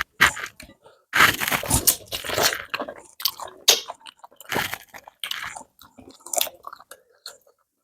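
Close-miked chewing and biting of food, in irregular crunchy bursts with short pauses between.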